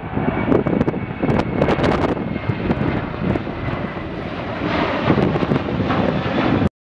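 Ryanair Boeing 737-800's jet engines at takeoff power as it climbs out overhead: a loud, rough roar with a faint steady whine. The sound cuts off suddenly near the end.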